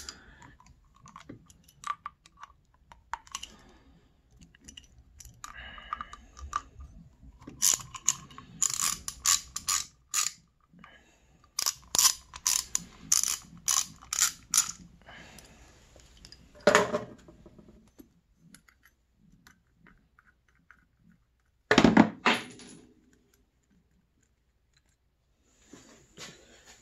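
Hand ratchet with a 4 mm hex socket bit clicking as it backs out the cable retaining bolts on a snowmobile power-valve cover, in two runs of quick clicks a few seconds long. Lighter handling clicks come between them, and there are two louder knocks past the middle.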